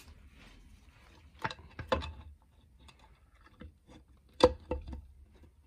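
Aluminium engine side cover clicking and knocking against the crankcase as it is eased onto its gasket and worked into place. The sharp metal taps come one at a time, the loudest about four and a half seconds in, with a quick pair just after it.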